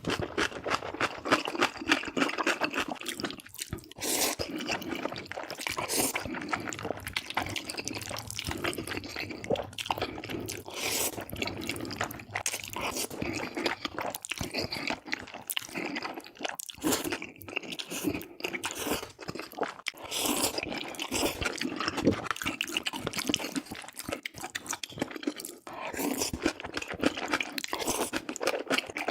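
Close-miked eating: a person chewing noodles, with many short wet mouth clicks in an irregular stream.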